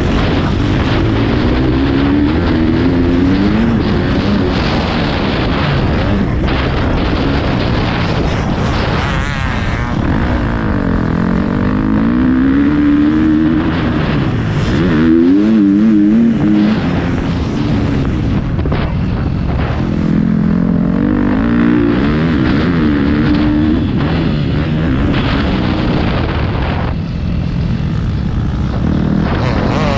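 Motocross bike engine being ridden hard, revving up and backing off again and again so its pitch rises and falls every few seconds, over a steady rough noise.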